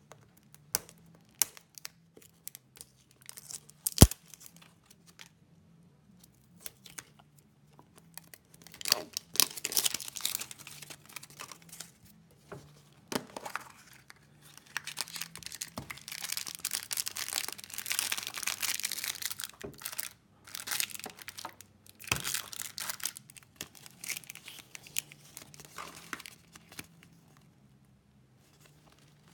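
A plastic surprise egg being unwrapped and opened by hand: tearing and crinkling of its plastic wrapping and folded paper insert, with scattered small clicks of the plastic shell and one sharp click about four seconds in.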